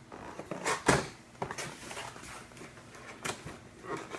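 A cardboard gift box and its packaging being handled and opened by hand: scattered taps, scrapes and rustles, with a louder knock about a second in.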